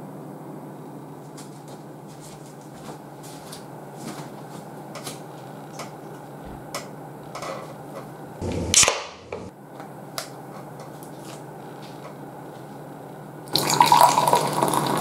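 A can of Asahi Off beer cracked open with a short hiss a little past halfway, then, near the end, beer poured from the can into a glass, splashing and foaming. Under it a steady low hum and a few light clicks.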